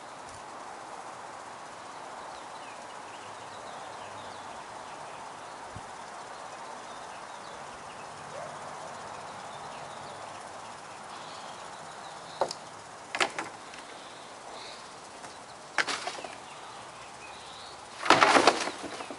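Steady faint outdoor background, then a few sharp knocks and, near the end, a loud short clatter at the green plastic wheeled trash bin right beside the microphone.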